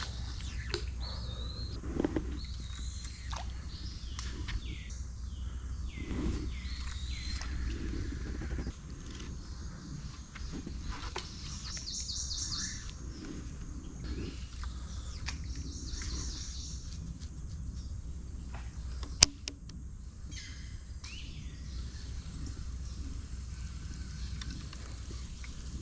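Birds chirping and calling over and over, over a steady low rumble. There is one sharp click about nineteen seconds in.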